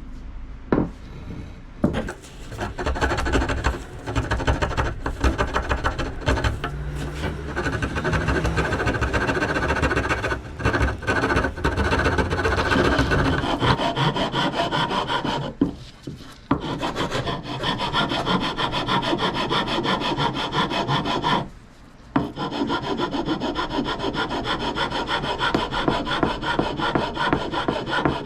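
Hand file rasping the wooden handle of a Husqvarna axe, steady back-and-forth strokes carving a textured grip, with two short pauses.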